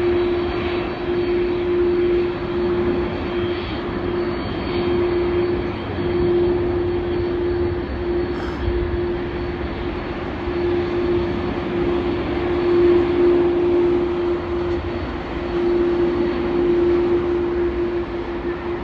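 Jet engines of an Airbus A380-800 running: a steady rumble and rushing noise with one steady droning tone through it.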